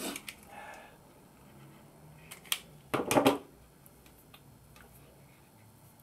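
Hand tools and small wires being handled on a workbench: scattered sharp clicks and knocks, with the loudest cluster about three seconds in.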